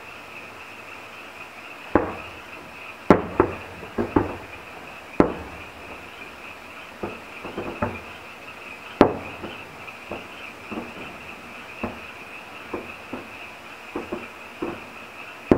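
Aerial firework shells bursting: about twenty sharp booms at irregular intervals, starting about two seconds in, each trailing off in an echo, the loudest around three and nine seconds in.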